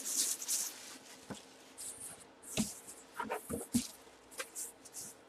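A clear plastic bag crinkling and rustling as a bagged full-size football helmet is lifted out of its cardboard box, with a couple of soft knocks about two and a half and three and a half seconds in.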